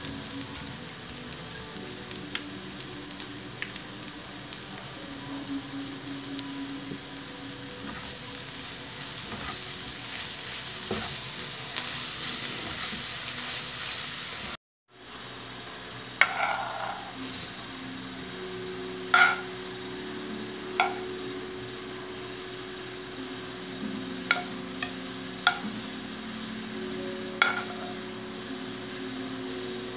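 Cubes of fried meatloaf and tofu sizzling in a frying pan while mayonnaise is stirred through them. After a short break, a series of sharp, ringing clinks of utensil, pan and plate as the food is served out.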